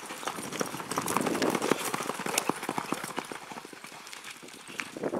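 Hoofbeats of a Quarter Horse gelding galloping on loose dirt as it runs down a steer: fast, irregular thuds, loudest early and fading as the horse moves off.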